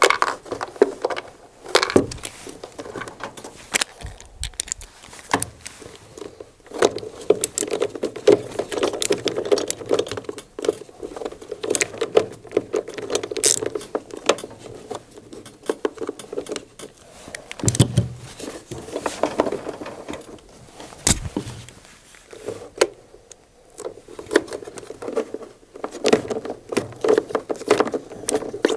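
Screws and a sheet-metal pump bracket being handled and driven in with a T27 Torx driver: an irregular run of clicks, scrapes and light metallic jingling, with a few sharper knocks.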